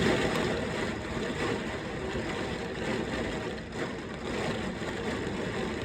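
Heavy thunderstorm downpour and strong wind: a steady, dense hiss of rain, slightly louder at the very start.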